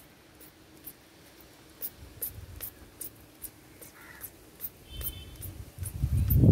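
Trigger spray bottle squirting over and over in short hissing spritzes, about two or three a second, as liquid pesticide is sprayed onto a plant. A low rumble of handling or wind on the microphone comes and goes and is loudest at the very end.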